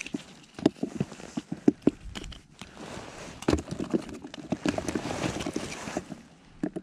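Handling noise: irregular short knocks and clicks with rustling of a padded winter suit as a caught perch is unhooked and a small ice-fishing rod is picked up. The rustling is thickest in the second half.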